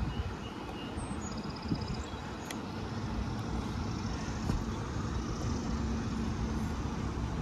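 Steady low outdoor rumble, with a faint steady hum from about four seconds in to six and a half, and a short run of faint high ticks about a second in.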